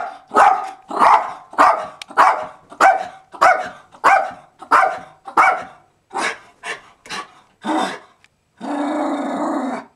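Jack Russell terrier barking in a fast, steady series, about one bark every 0.6 seconds, alert barking at a squirrel outside the window. The barks stop about 8 seconds in, followed near the end by one steadier, drawn-out sound lasting about a second.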